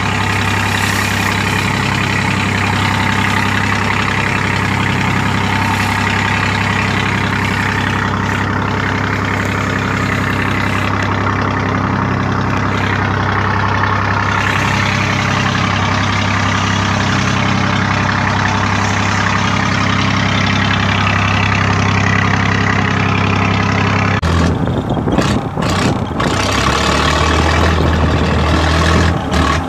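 A fishing boat's engine running steadily with a low, even drone, under the hiss of wind and rough sea. About three-quarters of the way through the sound turns rougher and uneven.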